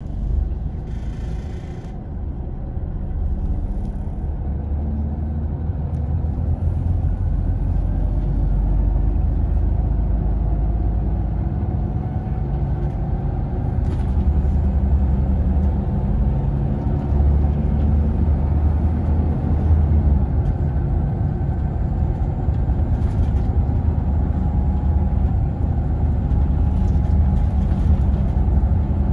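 Scania Irizar Intercentury 10.32 bus under way, heard from inside the cabin: a steady low engine and road rumble that grows louder over the first several seconds, then holds. There is a brief hiss about a second in.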